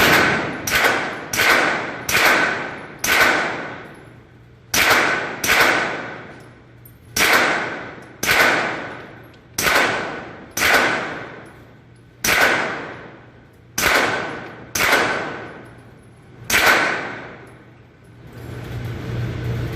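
Suppressed CZ Scorpion Evo 3 9mm carbine fired semi-automatically, one shot at a time. Several shots come quickly, there is a short pause about four seconds in, and then roughly one shot a second follows. Each shot trails off in a long echo.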